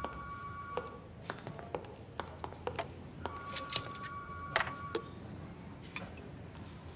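Light clicks and clinks of a glass cognac bottle and glasses being handled as the screw cap is twisted off, with a quiet pour into a glass near the end. A soft held tone sounds twice, once at the start and once around the middle.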